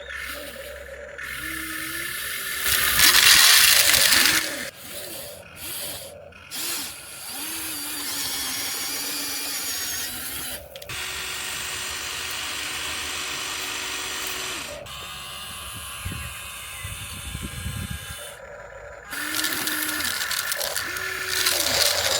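Small electric motors of RC construction models whining as they start, stop and change speed, with longer stretches of steady running. There is a loud burst of scraping about three seconds in.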